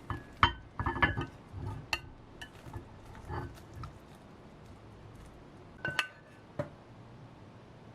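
A run of clicks, knocks and clinks from dishes and utensils being handled, busiest in the first two seconds, with a sharp ringing clink about six seconds in.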